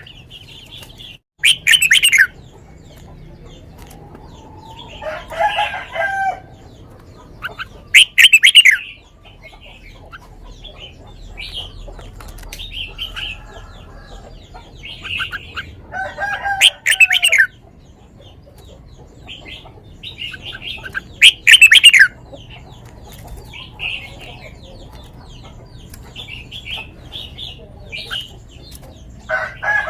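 Red-whiskered bulbul singing: loud, short high phrases every five to eight seconds, with softer chirps between. Lower, fuller calls come in twice.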